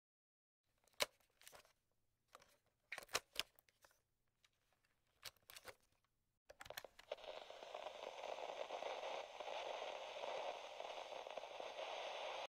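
Glitch and static sound effects: scattered sharp electric crackles and clicks, then a steady static hiss for about five seconds that cuts off abruptly.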